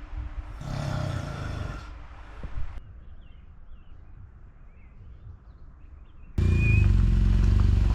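Faint, irregular high chirping of night sounds, after a brief burst of noise. About six seconds in, a sudden cut brings in a Triumph Tiger 800 motorcycle's three-cylinder engine running loud and steady.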